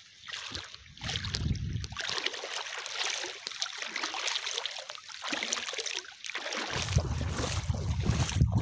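Water sloshing and splashing, as of someone wading through a shallow pond, with a low rumble joining in near the end.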